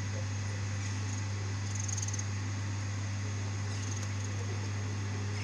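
Steady low hum with a few faint high-pitched squeaks, as an ER9M electric multiple unit approaches slowly at a distance.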